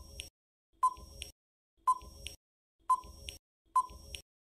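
Quiz countdown timer sound effect: a short ticking blip about once a second, five in all.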